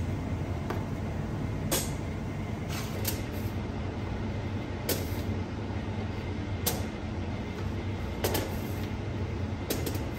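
Stones and chunks of rock salt being set down one by one on a perforated metal tray: about seven sharp, irregular clacks over a steady low hum.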